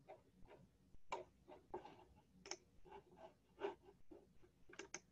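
Faint, irregular clicks of a computer mouse, about a dozen in all, over a quiet room.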